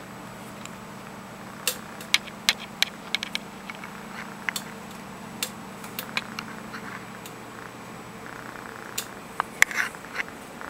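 A pet snoring as a low, steady drone, with a scatter of sharp clicks and taps over it.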